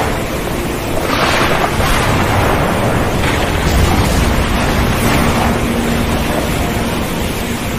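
Storm at sea: waves surging and wind blowing in a dense, steady wash of noise that swells about one, three and five seconds in.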